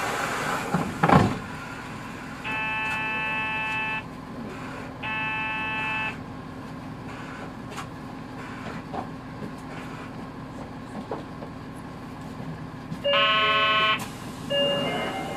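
Inside a Hino 2DG-HX9JLCE route bus: the drivetrain hums steadily, with a short rush of noise in the first second. Two electronic beeps of a second or so sound around three and five seconds in, then a louder, lower buzzer tone sounds for about a second near the end, followed by a brief high beep.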